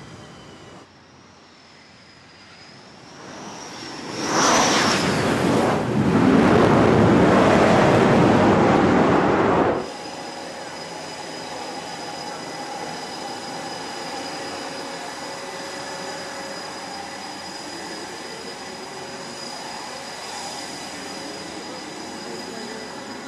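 Fighter jet's engines rising to a high whine, then loud jet noise for about six seconds that cuts off abruptly. Steady flight-deck engine noise with a faint high whine follows.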